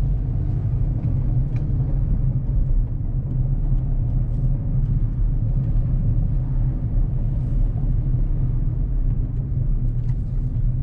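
Car being driven, a steady low rumble of engine and road noise.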